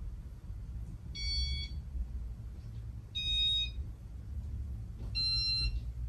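Three short electronic beeps about two seconds apart from the Casablanca Nouvelle ceiling fan's control, typical of the fan acknowledging speed-change commands, over the low, steady hum of the fan running.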